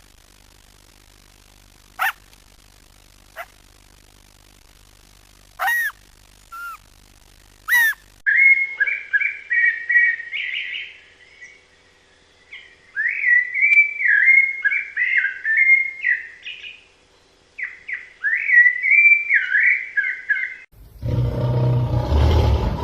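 A few short, high whining calls, then a songbird singing three fast warbling phrases. A loud, deep, roar-like sound begins near the end.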